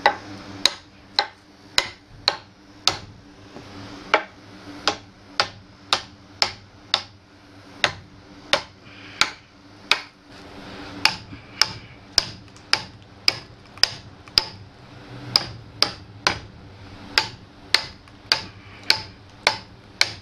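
Small sledgehammer striking the steel poll of an axe head, driving the blade into the end grain of an Osage orange limb. The sharp metal-on-metal blows come at a steady rate of about two a second, with a few short pauses, and each one rings briefly.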